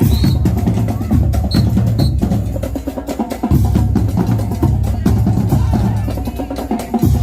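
High school marching band playing, with drums prominent: rapid drum strikes over heavy, sustained low notes.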